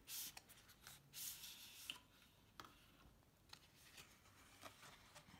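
Faint rustling and light scraping of cardboard packaging being handled, with a few small clicks.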